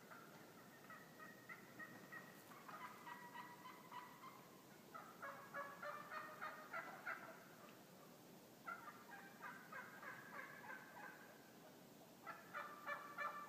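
Wild turkeys calling at the roost at fly-down time: five runs of short, repeated notes, each run lasting a second or two, with pauses between.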